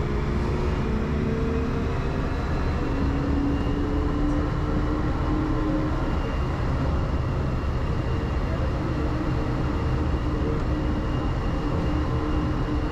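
Airport people-mover train running, heard from inside the car: a steady low rumble with a humming motor whine whose pitch shifts a little.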